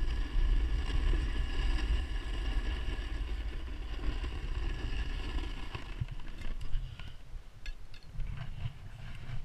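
Snowboard edge scraping and chattering over hard, icy snow as the board side-slips slowly, barely holding an edge; a loud rumbling scrape that eases off after about six seconds. A few sharp clicks follow near the end as an ice axe touches the ice.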